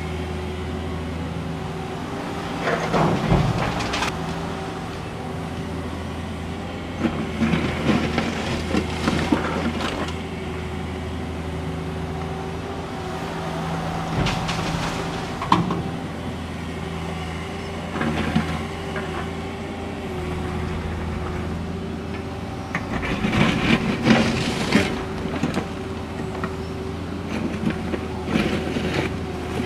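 Cat 305.5E2 mini excavator's diesel engine running steadily under hydraulic load, broken by repeated bouts of scraping, clattering and crashing as broken asphalt is ripped up, scooped and dropped. About halfway through, a load crashes into the steel bed of a dump truck.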